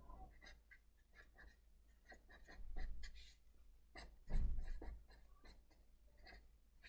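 Felt-tip marker writing on a paper worksheet: a string of short, faint scratchy strokes, with a few louder strokes about three seconds and four and a half seconds in.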